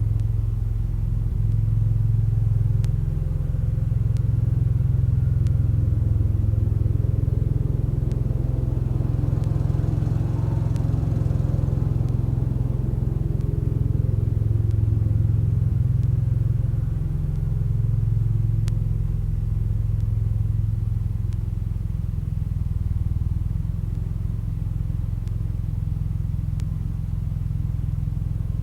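A 1975 Case 224 garden tractor's engine runs steadily while working a snow thrower: a continuous low drone, with a brief swell of higher sound about ten seconds in.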